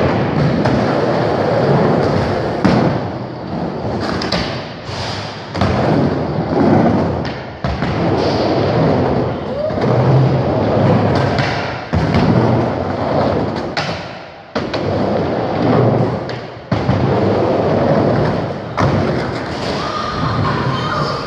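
Skateboard wheels rolling back and forth across a wooden ramp, the rolling noise swelling and fading every couple of seconds, with repeated thuds and clacks as the board and trucks hit the ramp and its metal coping.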